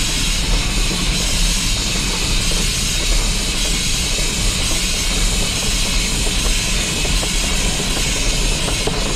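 Steam locomotive running, heard close to its wheels: a steady loud hiss of steam venting beside the running gear over the rumble and clatter of the wheels on the rails.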